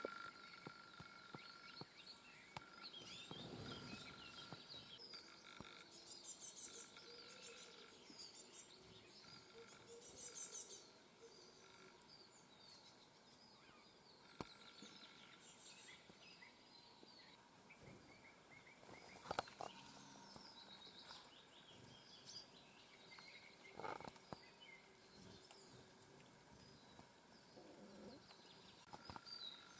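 Faint chirps and calls of small songbirds, several short calls and trills overlapping, with a few sharp clicks.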